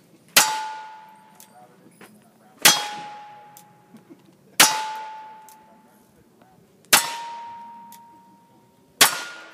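Five revolver shots about two seconds apart, each followed by the clang and fading ring of a steel target being hit.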